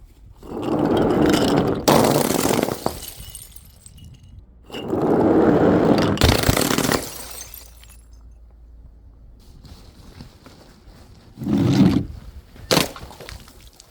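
Glass being broken and crushed: three long bouts of crunching and shattering, then a single sharp crack near the end.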